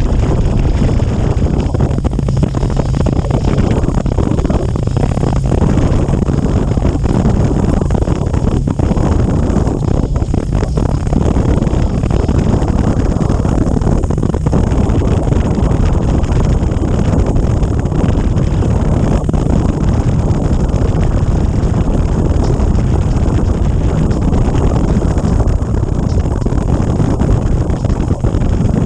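Wind rushing over the microphone of a motorcycle at road speed, steady throughout, with the engine and tyre noise beneath it.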